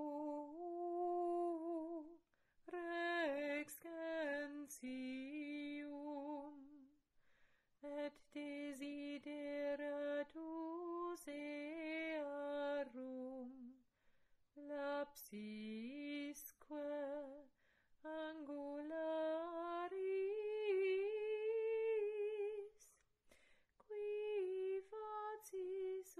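A woman's voice singing a slow melody unaccompanied, in phrases with short breaks between them, the held notes wavering with vibrato.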